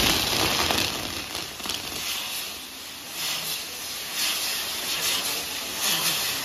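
Fireworks castle (castillo) burning: its spark fountains hissing. A loud crackle dies away over the first second or two, then the hiss comes back in spurts about once a second.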